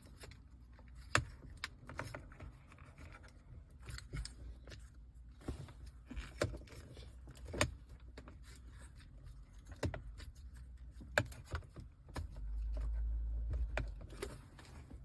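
Scattered sharp clicks and light rattles of plastic dashboard trim and wiring connectors being handled and unplugged, with a low rumble lasting about two seconds near the end.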